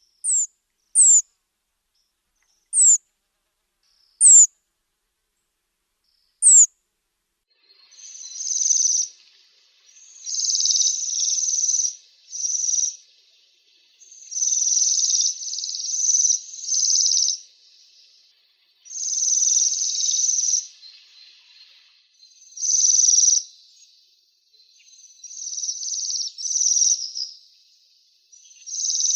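Waxwings calling: five short, thin, high notes falling in pitch over the first few seconds, then a series of high, buzzy trills, each a second or two long, repeating with short gaps.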